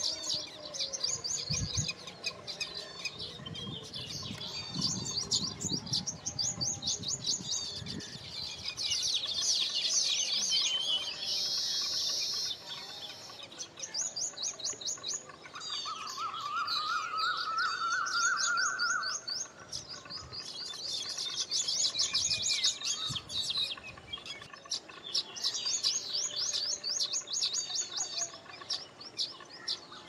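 Baya weavers chattering: rapid runs of high, buzzy chirps repeated again and again, with a lower trill joining in for a few seconds a little past halfway.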